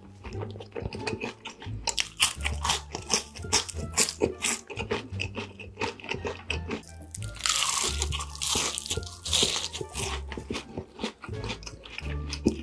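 Close-up eating sounds: crunchy bites and chewing, with a dense run of crackling crunches about two seconds in and another thick stretch past the middle. Background music with steady bass notes plays underneath.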